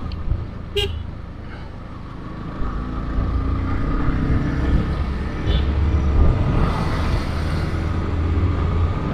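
Motorcycle riding in traffic on a highway: a low engine and wind rumble that grows louder about two and a half seconds in as it speeds up, with a vehicle horn sounding.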